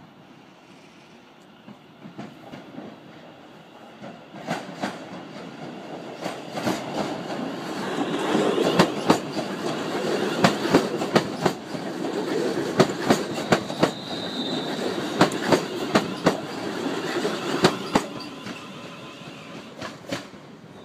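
British Rail Class 350 Desiro electric multiple unit departing and passing close by, its wheels clacking over the rail joints in a long run of sharp clicks. The rumble builds from about four seconds in, is loudest as the train passes and fades near the end.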